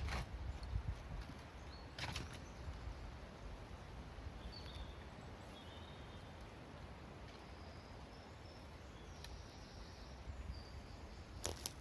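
Quiet woodland ambience with faint, short high bird chirps scattered through the middle. A sharp click comes about two seconds in, and a few footsteps on the forest floor near the end.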